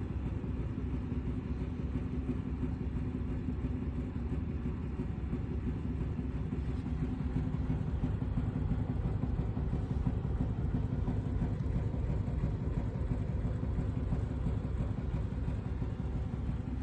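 Laboratory shaker's motor running with a steady mechanical hum and rumble.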